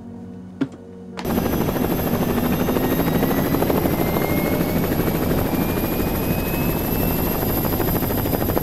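Helicopter in flight: dense rotor chop and engine noise that comes in suddenly about a second in and then holds steady, with a faint whine slowly rising in pitch.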